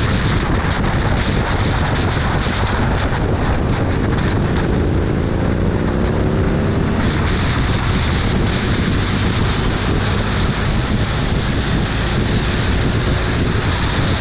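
Heavy wind buffeting on the microphone over a vehicle's engine running at road speed, with the engine note rising as it accelerates about five seconds in.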